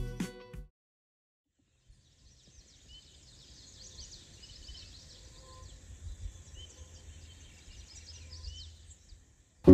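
Faint dawn birdsong from around a lake: many small, distant chirps and a few short whistled notes over a low, steady background rumble. Music fades out just at the start.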